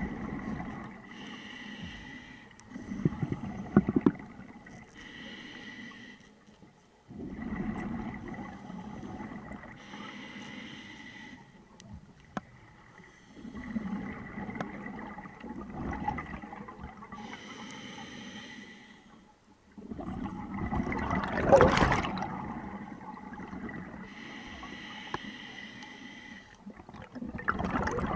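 Scuba diver breathing through a regulator underwater: a hissing inhale through the demand valve alternating with a bubbling exhale, about every six to seven seconds. The exhale a little after twenty seconds in is the loudest.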